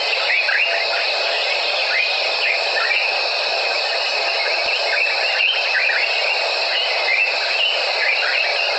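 Evening wildlife chorus in the African bush: a dense, steady shrill of calling insects with many short, falling chirps repeated over it.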